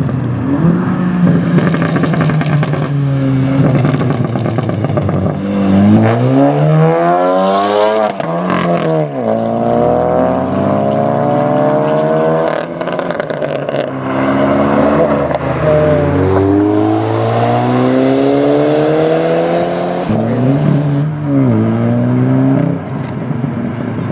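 Straight-piped, tuned VW Golf GTI 7.5 with a turbocharged 2.0-litre four-cylinder, revving hard several times. Its pitch climbs and then drops sharply, again and again. A burst of crackles comes as the revs fall about eight seconds in.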